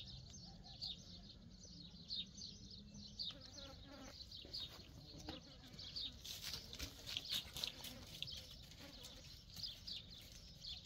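A pen of long-haired goats: faint, occasional bleating with some rustling, under a steady run of short, high chirps.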